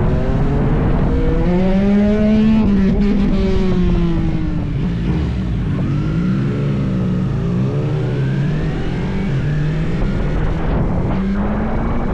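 Yamaha MT motorcycle engine under hard riding, its pitch rising and falling repeatedly with sudden step changes as it is revved up and shifted through the gears.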